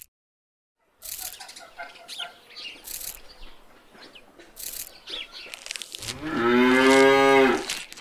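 A cow mooing once, a long steady call of about a second and a half near the end. Before it come light clicks and rustling as chopped leaves are dropped into a feed bowl.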